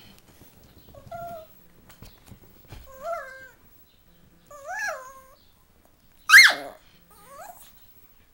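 Chihuahua whining in protest while being held and mock-bitten: five short whines that rise and fall in pitch, the loudest and highest a sharp yelp about six seconds in.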